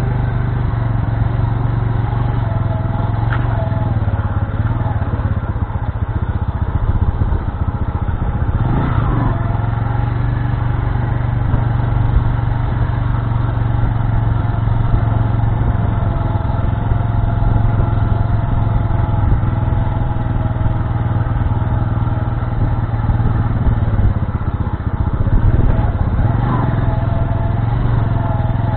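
Bajaj Boxer's single-cylinder four-stroke motorcycle engine running steadily while riding at low speed over a dirt track. The engine note shifts briefly about nine seconds in and again near the end.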